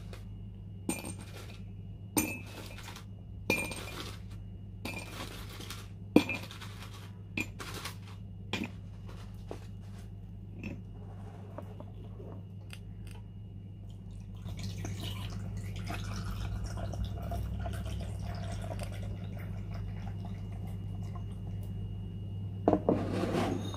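Quiet room with a steady low hum and faint, sharp clinks coming roughly every second and a half for the first ten seconds or so, then a soft hiss-like rustle from about halfway through.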